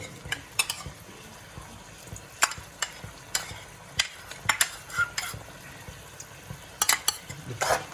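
Chilli chicken gravy being stirred in a pan as cornflour slurry thickens it, with sharp, irregular scrapes and clinks of the utensil against the pan over a steady sizzle.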